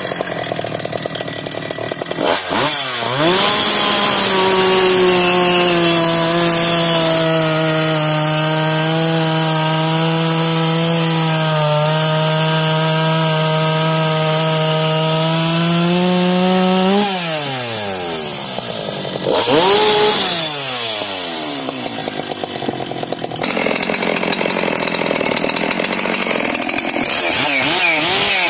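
Stock Husqvarna 395xp two-stroke chainsaw at full throttle. It bogs down to a lower, steady engine note as it cuts through a large log for about fourteen seconds, then screams back up out of the cut and drops off. Near the end a ported Holzforma G660 two-stroke chainsaw is revved up and down.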